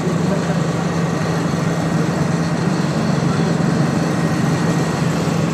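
Stationary electric suburban local train humming steadily at the platform: a constant low drone with even running noise over it.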